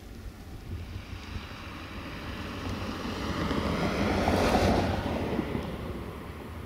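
Wind rumbling on the microphone, with a rushing noise that swells to a peak about four and a half seconds in and then fades away.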